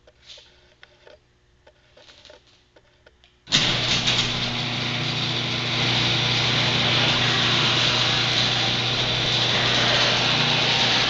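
A few faint clicks, then about three and a half seconds in a garage door opener motor switches on abruptly and runs loudly and steadily.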